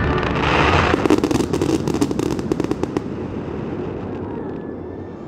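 Aerial fireworks bursting: a rush of noise, then dense rapid crackling for about two seconds that thins out and fades.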